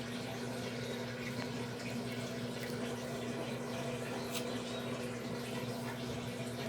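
Midea 12 kg washing machine filling with water: a steady rush of water into the drum over a low, even hum, with a few faint clicks.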